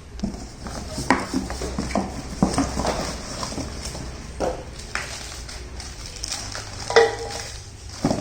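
Surgical-steel cookware being handled: an irregular run of knocks and clinks of metal pots and lids. About seven seconds in comes a louder knock that rings briefly.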